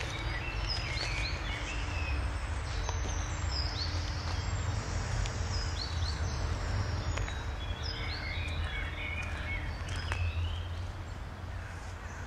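Songbirds singing, a scatter of short high chirps and quick downward whistles, over a steady low rumble.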